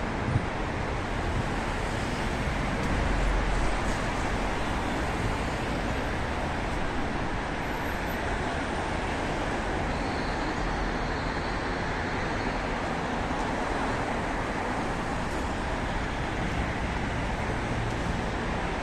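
Steady city road traffic: a continuous wash of car and bus noise from a busy street, swelling slightly about three seconds in.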